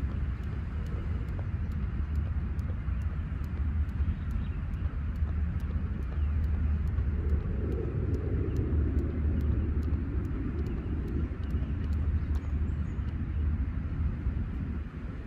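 Jump rope hitting the ground in a steady rhythm of about two to three light ticks a second, stopping about 13 seconds in, over a steady wind rumble on the microphone. A low drone swells and fades in the middle.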